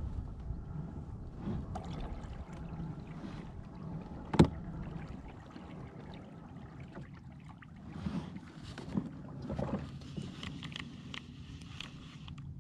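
Handling noise from a baitcasting rod and reel in a kayak: light clicks and knocks, with one sharp knock about four seconds in and a cluster of smaller clicks near the end, over a low rumble that eases off partway through.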